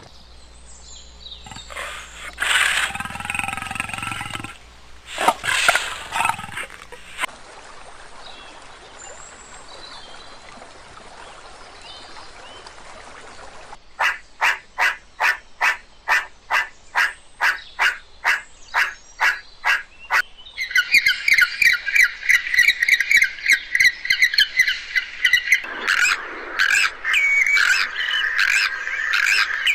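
A horse whinnying twice in the first few seconds. From about halfway through, a meerkat gives sharp repeated calls, about two a second, that turn into a faster chatter. Bird calls follow near the end.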